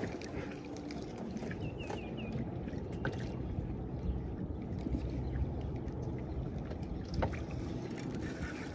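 Steady low rumble of wind and lake water on the microphone aboard a fishing kayak, with a few light clicks and four quick, faint high chirps about two seconds in.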